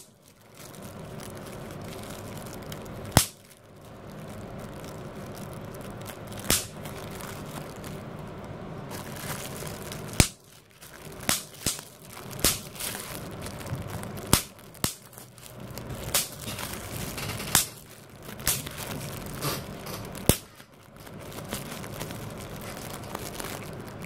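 Plastic bubble wrap being squeezed between thumbs: about a dozen sharp single pops at irregular intervals, sparse at first and coming closer together in the second half, with crinkling of the plastic sheet between pops.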